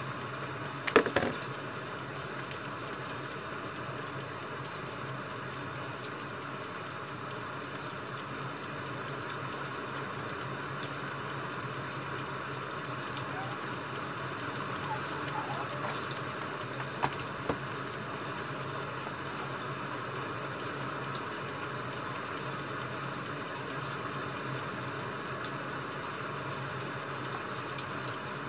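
Steady hiss of a rain-sound ambience track, with a few sharp clicks and knocks, the loudest about a second in; a few softer ones come around the middle, as the books are handled on the desk.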